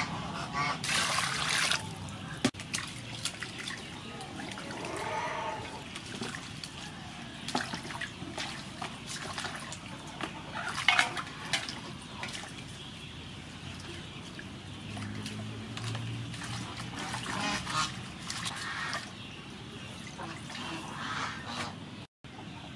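Water splashing and dripping in a large aluminium basin as vegetables are swished and rinsed by hand, in short irregular splashes.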